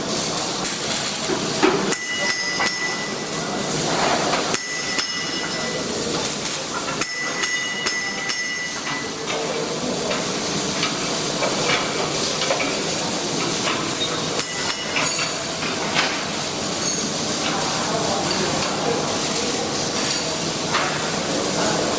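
Metal workshop noise: metal struck and clanking, ringing briefly several times in the first half, over a steady hissing crackle like a welding arc.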